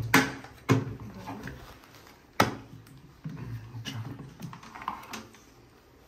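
Plastic latches on the side of a Kärcher wet-and-dry vacuum being unclipped: three sharp clicks in the first two and a half seconds, then fainter handling knocks.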